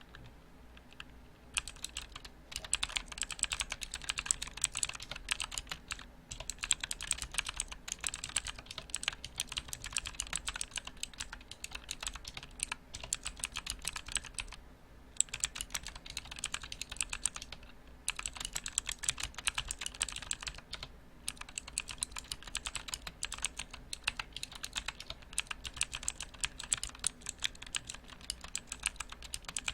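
Fast typing on a mechanical keyboard: dense runs of sharp key clacks lasting several seconds, broken by brief pauses.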